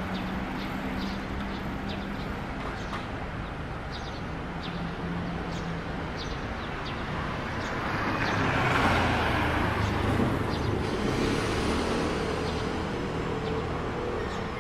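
Street traffic ambience: a steady low hum of idling engines, with short bird chirps through the first few seconds and a vehicle passing by, swelling and then fading, around nine seconds in.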